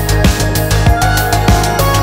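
Electronic background music with a steady, fast drum beat over a deep bass line.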